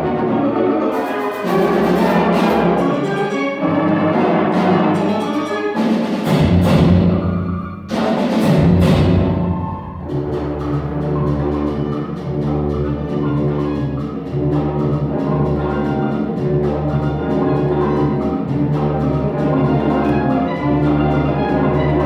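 School concert band of woodwinds, brass and percussion playing live, with loud accented hits in the first half and a steadier passage with an even pulse after about ten seconds.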